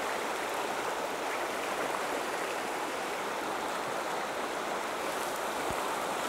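River water rushing steadily through a shallow, rocky riffle.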